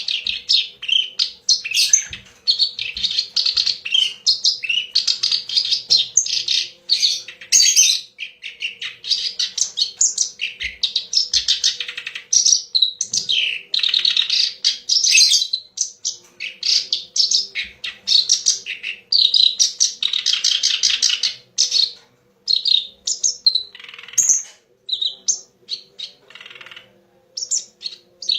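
A kerak basi (clamorous reed warbler) singing a long, rapid, chattering song of tumbling phrases, thinning to shorter scattered notes near the end. A faint steady hum lies underneath.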